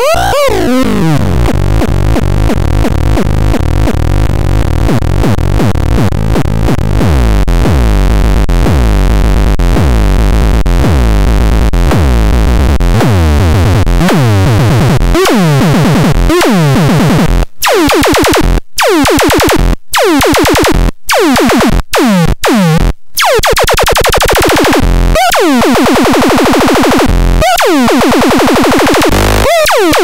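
Trakandax handmade electronic noise synth box putting out a rapid, buzzy pulsing over a low drone. From about halfway, falling pitch swoops repeat roughly once a second, broken by several short cut-outs.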